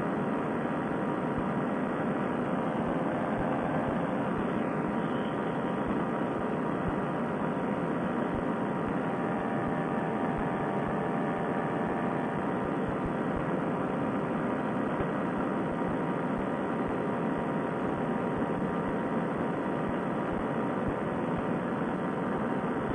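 Fresh Breeze Monster paramotor engine and propeller running at a steady cruise throttle: a constant drone mixed with the hiss of rushing air, with no change in power.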